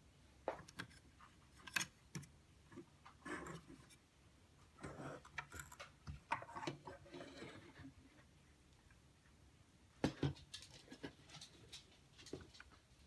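Irregular clicks, light knocks and short scrapes of 3D-printed plastic robot-figure parts being handled and moved against each other, with a cluster of sharp clicks about ten seconds in.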